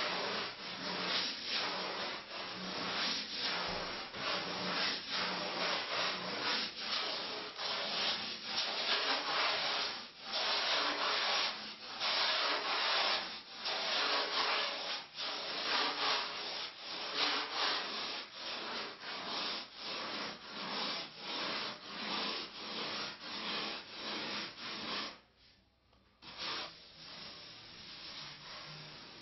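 Coarse 36-grit sandpaper on a flexible sanding board, scraping back and forth over a carved foam fuselage plug in repeated hand strokes, about one or two a second. It stops briefly near the end, and the sound is softer after that.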